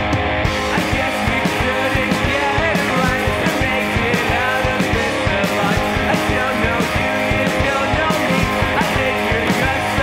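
Rock music soundtrack with a steady beat, playing loudly throughout.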